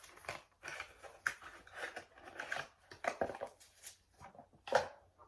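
Handling noise from a small plastic device and its cover being opened and turned over: a dozen or so irregular clicks and rustles.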